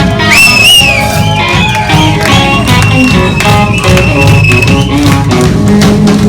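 Live rock band playing, with an electric lead guitar solo over bass and drums: a few bent notes near the start, then one long held high note.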